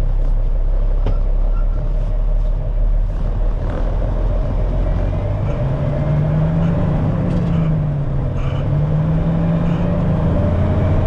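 1974 Kenworth log truck's diesel engine heard from inside the cab, pulling a heavy load: the engine note climbs, drops back and climbs again as the driver shifts up through the gears. A few sharp knocks sound in the first few seconds.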